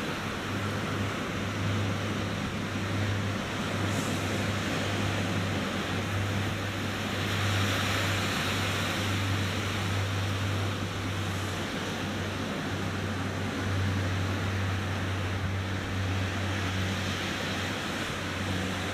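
Ocean surf breaking and washing ashore, swelling about halfway through, over a steady low hum.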